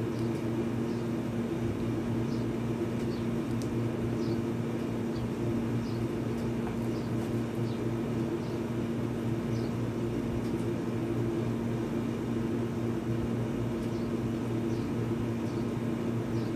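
A steady low hum throughout, with faint light clicks as a phone and its clear plastic case are handled.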